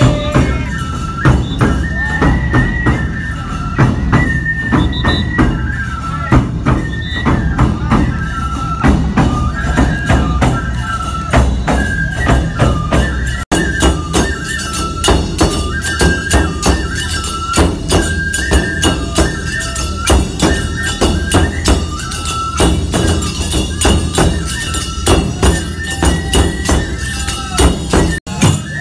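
Live nebuta bayashi festival music: bamboo flutes play a repeating melody over steady taiko drum beats and ringing tebiragane hand cymbals. The music breaks off for an instant about halfway through.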